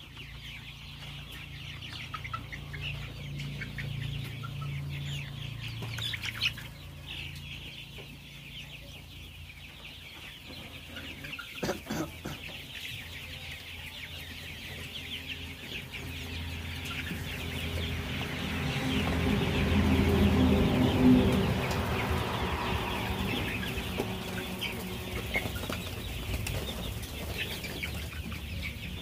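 A flock of chickens clucking and chirping continuously, with wing flapping. The noise swells to its loudest about two-thirds of the way through.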